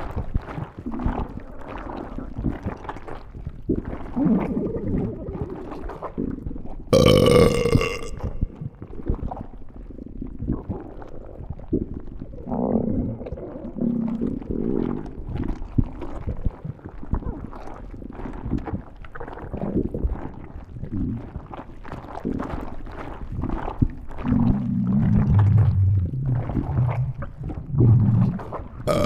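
Stomach growling and gurgling, irregular low rumbles with crackly bubbling throughout. A brief, loud, high-pitched squealing growl about seven seconds in, and a longer deep rumble near the end.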